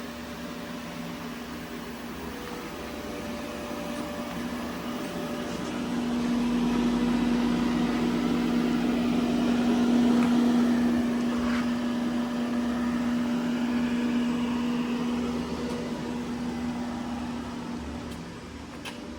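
Hurco VMX-42Di CNC vertical machining centre running under power: a steady mechanical hum with one strong tone, which grows louder about six seconds in and eases off near the end.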